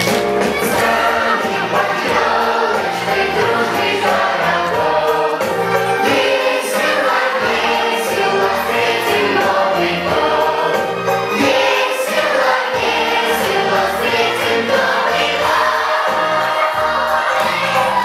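Children's choir singing a Christmas song in unison over instrumental accompaniment with a steady bass line.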